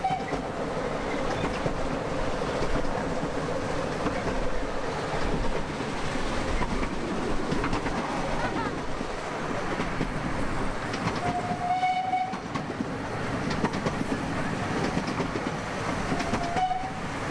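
Miniature park railway train running, heard from an open passenger carriage: a steady rumble and rattle of the wheels on the track. Two short high tones sound, the first about a second long roughly two-thirds of the way through, the second shorter near the end.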